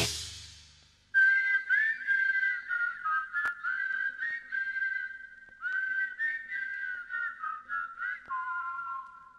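A heavy metal song's last chord fades out over the first second. Then a person whistles a melody, note after note, sliding up into many of the notes, on a vinyl LP playback with a single sharp click about three and a half seconds in.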